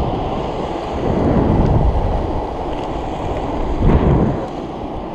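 Wind buffeting the microphone over the rumble of skateboard wheels rolling fast on asphalt, swelling about a second in and again near four seconds.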